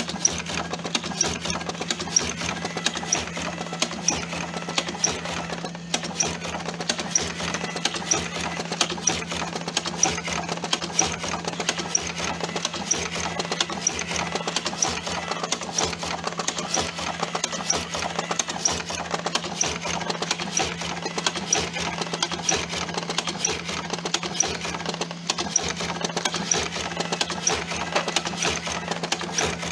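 TobaTech AG-01 electric cigarette tube filling machine running steadily: a constant motor hum with regular clicks from its filling mechanism.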